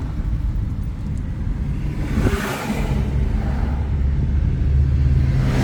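Steady engine and tyre rumble of a car driving along a highway, with another vehicle swishing past about two seconds in and again near the end.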